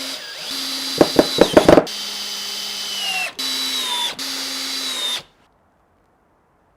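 Power drill running in short runs, its motor pitch sagging under load a few times, with a handful of sharp knocks about a second in. It stops a little after five seconds.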